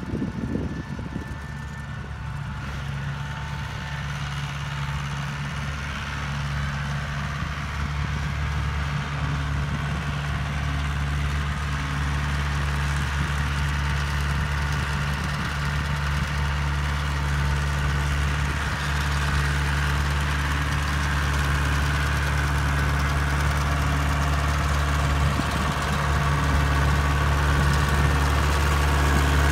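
Tractor engine running steadily at an even pitch as the tractor drives a sickle bar mower across a field, growing gradually louder as it comes closer.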